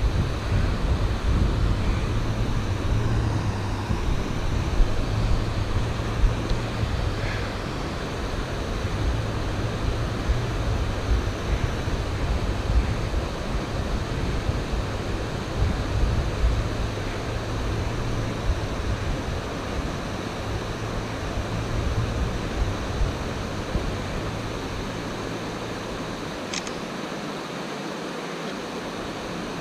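Steady rush of creek water pouring over a small rocky cascade, over a low rumble that dies away near the end.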